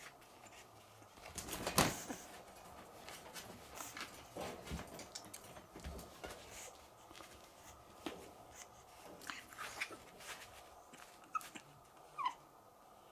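Pug puppy moving about in a wire crate: its claws and body make scattered clicks, scratches and rustles, with one louder bump about two seconds in. Near the end the puppy gives two short, high whines.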